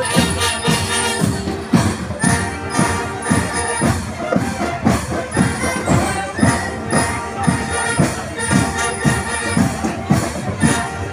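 School marching band playing a tune over a steady, regular drum beat, with jingling percussion on top.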